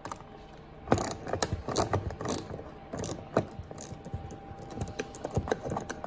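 Hand-held Torx driver with a T30 bit turning a screw in a car door armrest, giving a run of irregular sharp clicks from about a second in.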